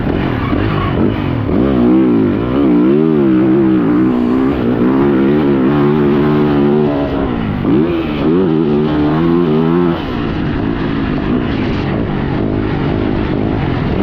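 Yamaha YZ450F motocross bike's four-stroke single-cylinder engine revving hard, its pitch rising and falling over and over as the throttle is worked, then running more evenly after about ten seconds.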